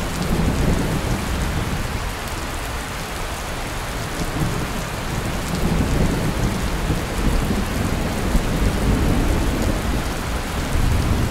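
Steady rain falling and splashing, a constant hiss, with low rumbling swells underneath that rise and fall several times.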